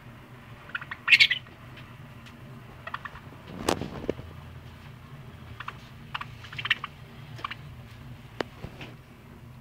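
Budgerigar giving short chirps and chattering notes while being stroked, the loudest chirp about a second in and a cluster of chirps past the middle, with scattered small clicks and one knock a little before the midpoint.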